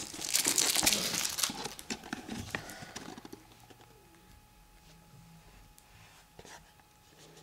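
Rustling and light clicks of hands handling a smartphone, dying away after about three seconds to quiet room tone.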